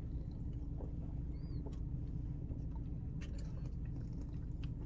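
Steady low rumble of a car cabin, with small clicks and sips as two people take turns drinking soda from a can.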